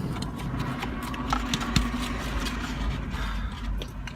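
Steady low rumble of a car's cabin, with scattered small clicks, smacks and scrapes from people eating shaved ice out of cups.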